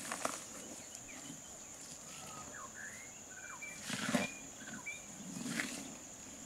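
Outdoor ambience: a steady high insect drone with scattered short bird chirps, broken by a few louder rushing bursts, the strongest about four seconds in and another about a second and a half later.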